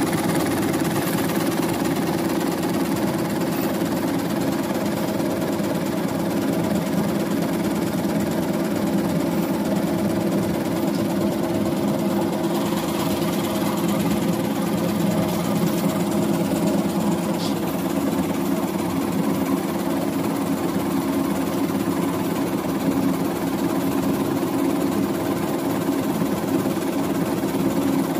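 Size 8 zipper cord machine running at speed: a steady, even mechanical hum and whirr with no pauses.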